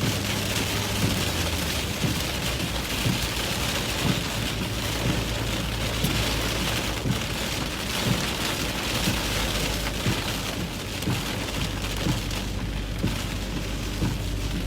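Heavy wind-driven rain pelting a vehicle's windshield and body, with many sharp drop impacts over a steady low rumble of wind buffeting, heard from inside the cabin.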